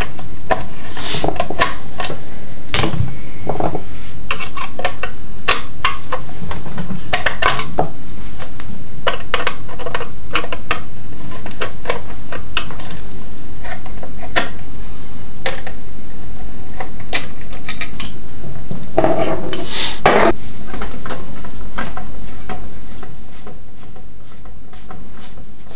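A hand socket tool clicking and metal engine parts clinking and clattering as bolts and the fan shroud of a small two-stroke engine are worked loose. Sharp, irregular clicks throughout, with a louder clatter about two-thirds of the way through.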